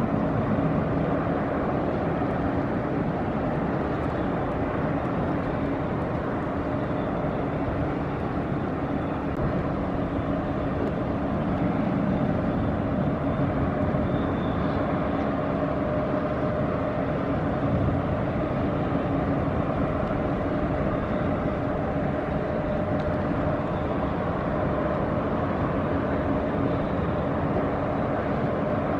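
Inland motor cargo ship's diesel engine running steadily as the vessel passes close by, a constant drone with a low hum held at a fixed pitch.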